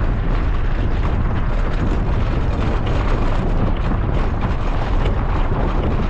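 Vehicle travelling on a dirt road: steady road rumble mixed with heavy wind buffeting on the microphone, a dense, even noise with a deep low rumble and no breaks.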